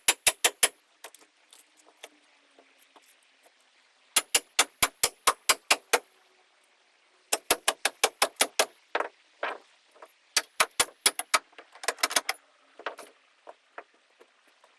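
Bursts of rapid, evenly spaced metallic hammering from a power hammering tool, about seven blows a second, working at the boat's stringers and foam. There are four runs of one to two seconds each, with pauses between, and a few scattered knocks near the end.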